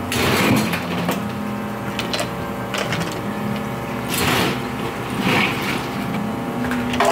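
Water poured from a small plastic pitcher over ice in a plastic cup about four seconds in, with a few sharp clicks of ice. Under it runs a steady machine hum of several fixed tones.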